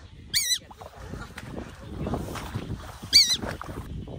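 A bird giving two short, shrill, wavering calls about three seconds apart, over low rustling and handling noise.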